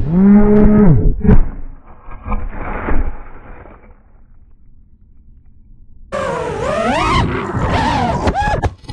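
FPV quadcopter's motors whining with a swooping, falling pitch, then a crash into branches and leaves about a second and a half in, with some rustling after it. After a quiet spell the motors spin back up about six seconds in, their pitch wavering, and the sound cuts off suddenly at the end.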